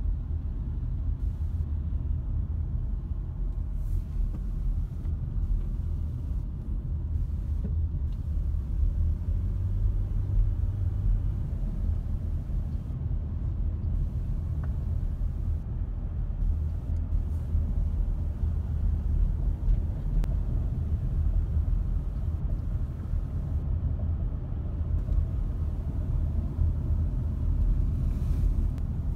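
Steady low rumble of a car driving at road speed, heard from inside the cabin: engine and tyre noise.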